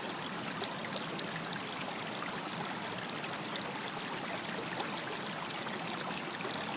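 Stream running steadily over stones, a constant rush of water with small bright splashes and trickles throughout.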